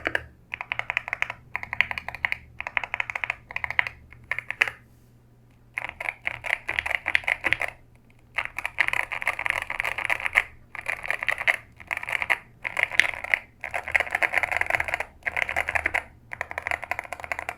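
Fast typing on a Keychron K2 HE magnetic-switch (Hall Effect) keyboard. Quick key clacks come in runs of a second or two with brief pauses between them, and the longest pause is about five seconds in.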